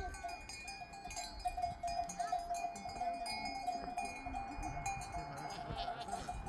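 Bells on a flock of sheep and goats clinking continuously, with faint bleating from the animals now and then.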